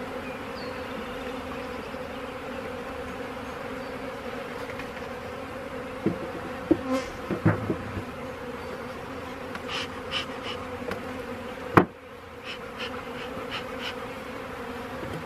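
Honeybees buzzing steadily in a dense swarm around an open hive, a constant hum. A few short knocks and clicks break in during the second half, one sharp knock standing out near the end.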